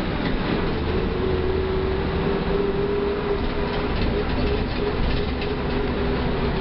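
Mercedes-Benz OF 1318 bus's diesel engine running with the bus under way. A steady whine sits over a low rumble, with some light rattling.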